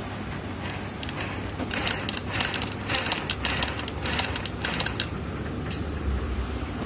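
Bharat full-shuttle sewing machine stitching cloth: a run of rapid clicking from the needle and shuttle mechanism that starts about a second in and stops near the end, over a steady low hum. The machine is sewing without skipping stitches after its repair.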